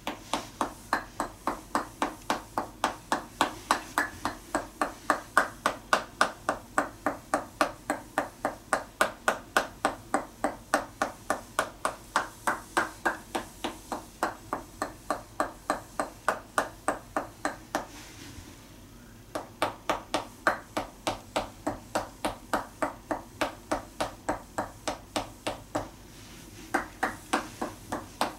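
Tok sen massage: a wooden mallet tapping a wooden stick held against the body through a towel, giving steady wooden knocks about three a second. The tapping stops briefly twice, about two-thirds of the way through and again near the end.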